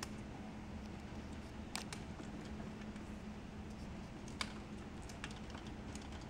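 Scattered faint clicks and taps of a wire harness and plastic connectors being handled by hand, over a steady low hum.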